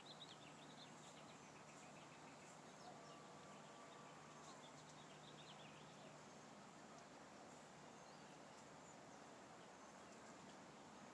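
Near silence: faint outdoor ambience with scattered faint bird chirps during the first few seconds.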